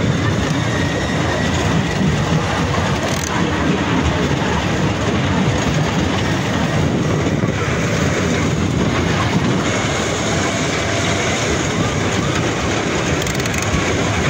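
Ride-on amusement 'bullet train' running: a steady, loud rumble with rattling and clatter that holds without pause.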